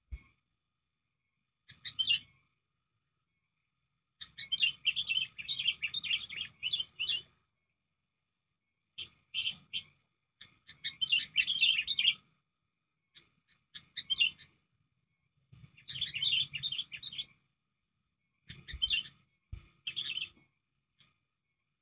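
Sooty-headed bulbul calling noisily in about eight bursts of rapid chattering notes, the longest running from about four to seven seconds in, with short silent gaps between.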